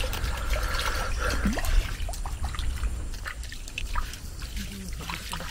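Water trickling and dripping in small irregular splashes close to a small boat, over a steady low rumble.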